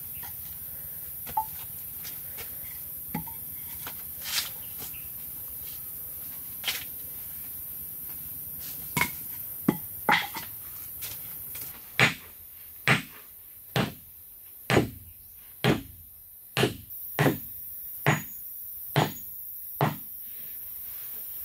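Hammer blows on a wooden stake driven into earth: a few scattered light knocks, then about ten steady blows, roughly one a second, through the second half.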